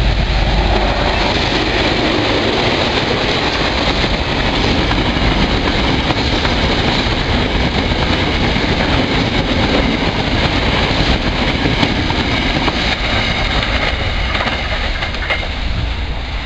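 KiwiRail DL class diesel-electric locomotive passing close by at the start, then a long freight train of wagons rolling past steadily on the rails.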